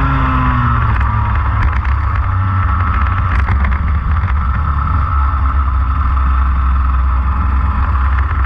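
Go-kart engine heard from a camera mounted on the kart, running low and steady after slowing down as the kart comes off the track at the end of the heat. There are a few rattles and knocks in the middle.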